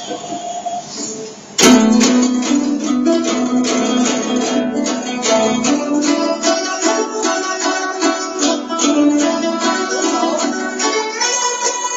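A guzheng played solo. After a quieter opening, a sudden loud stroke about a second and a half in starts a fast, dense run of plucked notes.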